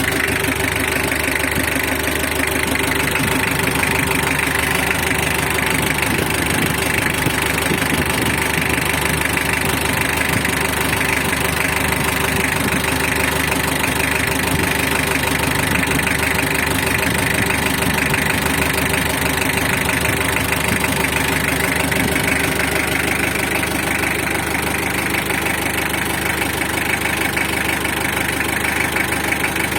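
Mitsubishi L300 engine idling steadily, freshly rebuilt after an engine overhaul.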